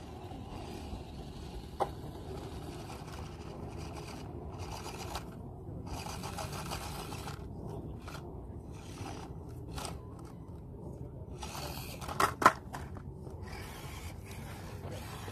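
Axial SCX24 micro RC crawler working over sandstone: its tiny electric motor and gears whir in short spurts while the tyres scrape on the rock. There is a sharp click about two seconds in, and a couple of loud knocks about twelve seconds in as the truck bumps on the rock.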